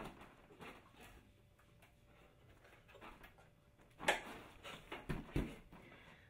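Knocks and thumps from a child working a home gymnastics training bar: a sharp knock about four seconds in, then two dull thuds about a second later, as of landing on the folding mat.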